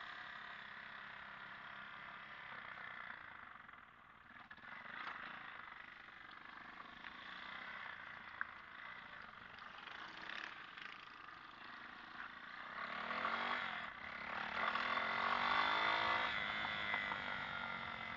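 Motorcycle engine running. About thirteen seconds in it grows louder and its note sweeps up and down in pitch for a few seconds.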